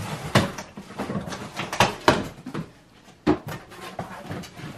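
Cardboard sneaker boxes being handled and opened: several sharp knocks and scrapes, with handling noise between them.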